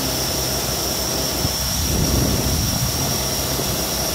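Volvo 780 semi truck's diesel engine idling steadily, a constant low rumble with a steady high hiss over it.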